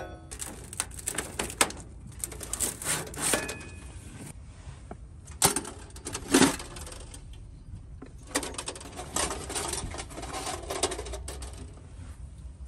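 Stainless steel box stove being taken apart by hand: metal clinks, scrapes and rattles, with two sharper metal knocks a little past the middle. Near the end the wire grate rattles as it is lifted out of the firebox.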